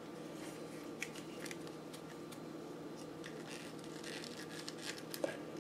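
Faint handling noises from a plastic action figure being adjusted: scattered small clicks and short rustles, with a sharper click about five seconds in, over a steady low hum.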